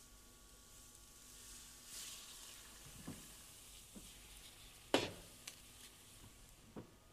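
Liquid nitrogen boiling with a faint sizzle as a rose is held in it, broken by a few sharp knocks, the loudest about five seconds in.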